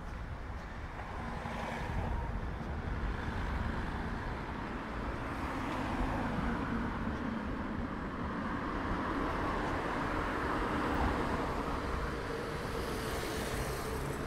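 Street traffic: a steady rush of cars going by, swelling through the middle.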